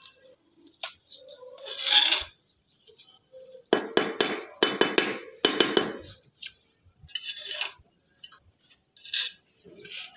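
Hard scraping and clinking of a tool against a hard surface, in a series of short rough strokes, the longest run about four to six seconds in.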